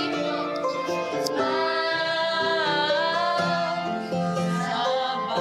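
Music: a melody sung over piano accompaniment, with a held note that bends in pitch about halfway through.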